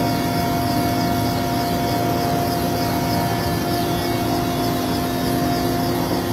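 Navy helicopter running steadily, a continuous engine and rotor drone with a few held tones.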